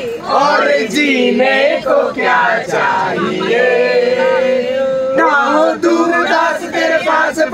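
Several people singing together without instruments, a man's voice to the fore, with one long held note in the middle.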